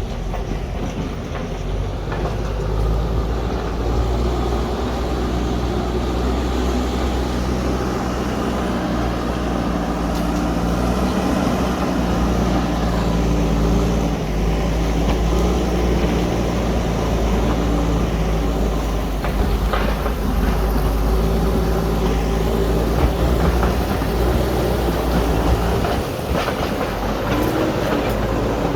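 JCB backhoe loader's diesel engine running steadily as the machine works, with a few short knocks near the end.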